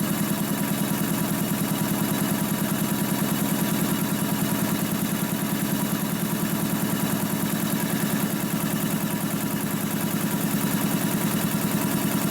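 Freshly rebuilt DeVilbiss DevAir 445 two-stage industrial air compressor running steadily, its pump beating in a fast, even pulse as it builds pressure in the tank.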